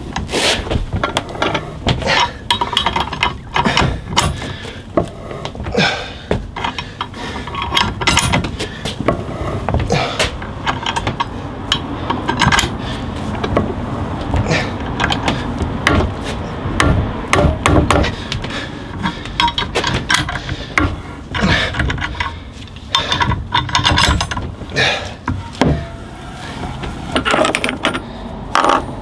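C-frame press screw being wound by hand with a wrench, pressing a new bush into the eye of a Land Rover Discovery 2 panhard arm: irregular metal clicks, knocks and creaks throughout. Near the end, steel press cups and tools clink as the press is taken off.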